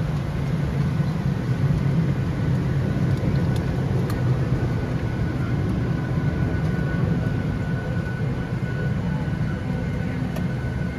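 Steady cabin noise inside a Boeing 737-800 parked at the gate before engine start: a constant low rumble from the air-conditioning airflow, with a faint steady whine above it.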